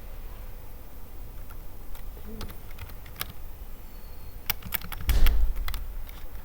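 Computer keyboard typing: scattered key clicks, thickening into a quick run of keystrokes about four and a half seconds in, with a dull low thump around five seconds, the loudest moment.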